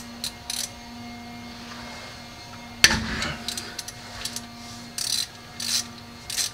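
Ratchet wrench working the rear differential's drain plug: short bursts of ratchet clicking and tool rattle, with one sharp metallic knock about three seconds in. A steady low hum runs underneath.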